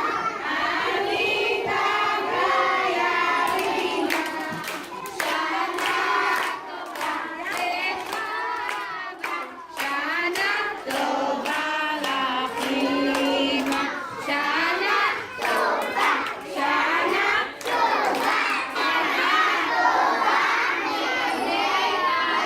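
A group of young children singing together, with hand clapping joining in a few seconds in and running through most of the song.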